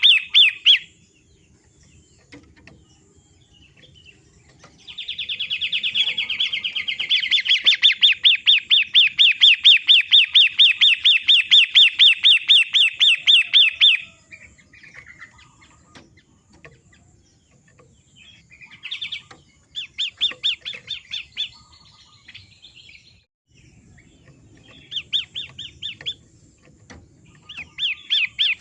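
Long-tailed shrike (pentet matahari) calling in bouts of rapid, evenly repeated high chattering notes, about five a second. The longest bout lasts some nine seconds, followed by shorter bursts with quiet pauses between.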